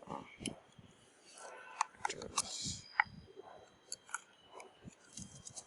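Plastic bicycle rear-view mirror mount being worked and tightened by hand with a screwdriver: scattered small clicks and taps, with a short scrape of plastic about halfway through.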